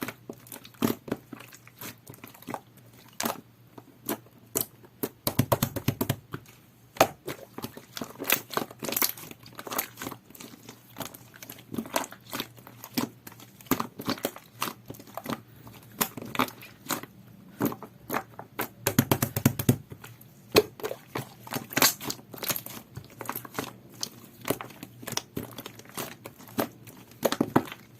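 Jelly-textured two-layer slime being squished, stretched and pressed by hand, giving a run of irregular sticky clicks and crackles, with two short thicker squelching stretches.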